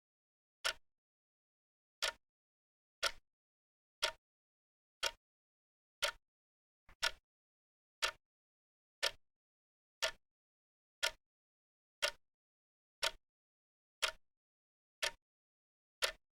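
Clock ticking, one sharp tick about every second, with silence between ticks.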